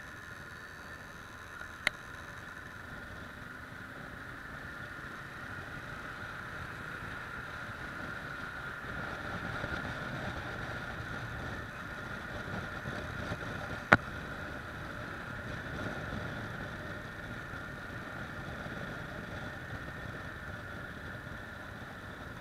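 Kawasaki ER-6f motorcycle being ridden: steady engine and wind noise, slightly louder in the middle. Two sharp clicks cut through it, one about two seconds in and a louder one about fourteen seconds in.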